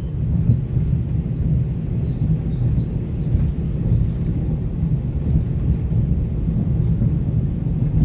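Interior running noise of a moving passenger train carriage: a steady low rumble of wheels and running gear on the rails.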